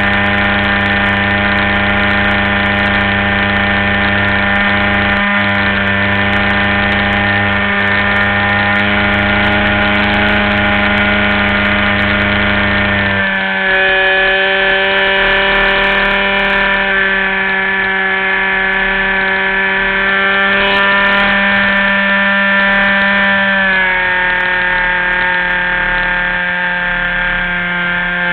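RC model airplane engine running steadily in flight, heard from on board the plane. Its note changes abruptly about halfway through and drops slightly later on.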